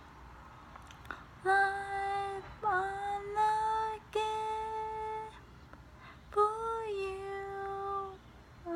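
A young person singing a hymn solo and unaccompanied, in long held notes. The singing begins about a second and a half in and breaks off briefly around six seconds.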